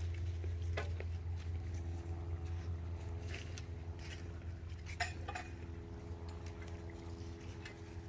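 A steady low hum with a few faint steady higher tones, broken by scattered light clicks and ticks and one sharper click about five seconds in.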